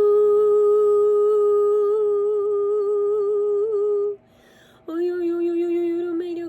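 A woman's voice toning: she holds one long hummed note, takes a breath about four seconds in, and then holds a second, slightly lower note.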